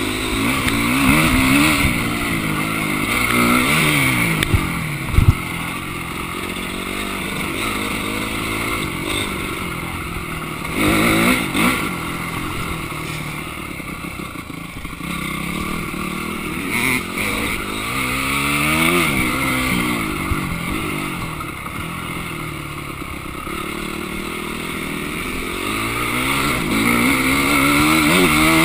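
Dirt bike engine revving up and down as it is ridden over a motocross track, the revs climbing and dropping again and again with throttle and gear changes. A couple of sharp knocks about five seconds in.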